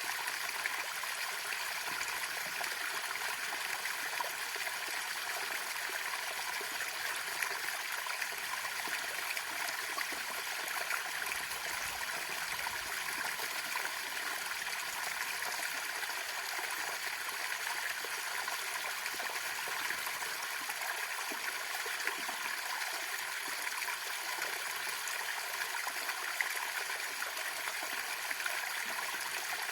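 Small waterfall, its water pouring steadily without a break.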